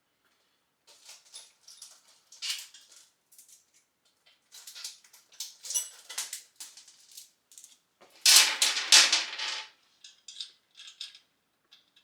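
Small steel bolts and hardware clinking and rattling in bursts as they are handled and sorted, with a louder rattle lasting about a second and a half around eight seconds in.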